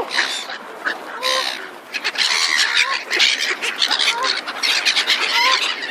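Waterbirds at the lake giving short honking calls, about one a second, over a busy rattle of short clicks and flutters.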